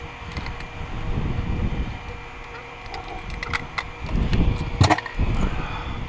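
Close-up handling noise as fishing line and a hook are retied by hand: rustling, a few sharp clicks and low bumps against the camera, the sharpest click just before the end, over a faint steady hum.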